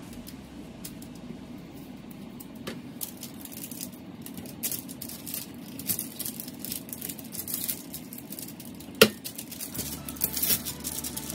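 Baking paper crinkling and rustling as it is pressed and smoothed into a metal baking tray by hand, with scattered light crackles and a single sharp tap about nine seconds in.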